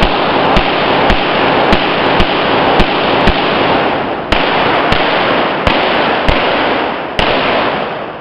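A string of pistol shots, about a dozen roughly half a second apart, with a short pause partway through. Each shot echoes heavily off the walls of an indoor range, so the reverberation fills the gaps between shots and dies away after the last one near the end.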